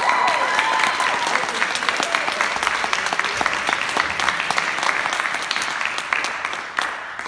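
Audience applauding, with a voice cheering in the first second; the clapping dies away near the end.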